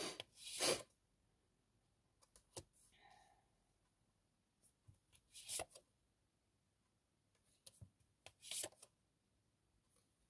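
Tarot cards being handled: short rustles and soft flicks of cards being shuffled and laid down, three louder brushes among scattered light clicks.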